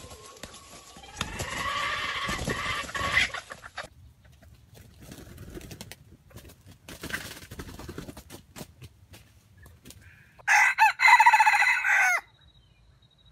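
Red junglefowl rooster crowing: one loud crow lasting under two seconds near the end. A quieter call comes a second or so in.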